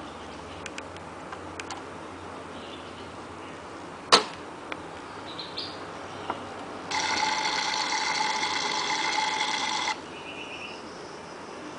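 Toy Tefal electronic kitchen hob: a sharp plastic knock about four seconds in, then the hob's built-in speaker plays a water-like cooking sound effect for about three seconds that cuts off suddenly, followed by a short electronic tone.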